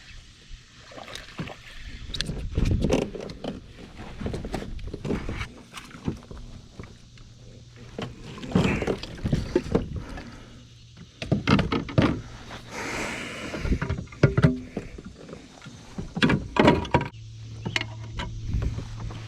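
Irregular knocks, thumps and rustling of gear being handled in a fishing kayak, with a longer hiss about thirteen seconds in.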